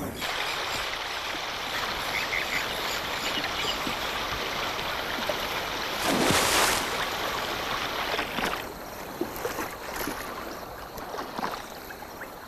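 Water splashing and lapping, with one louder splash about six seconds in; after that it settles to quieter lapping and small drips.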